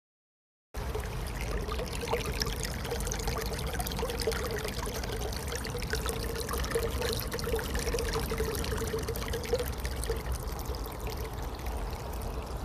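Water flowing and trickling, a steady splashing rush with fine bubbling detail. It starts suddenly about a second in, with a low rumble underneath.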